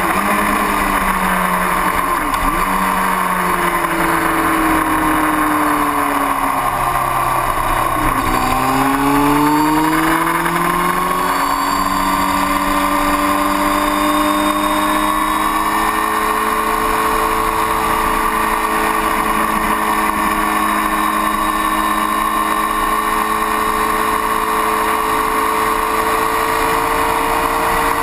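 Engine of the vehicle carrying the camera, running at speed with wind and road noise. Its pitch falls over the first several seconds, climbs again about eight seconds in, then holds steady.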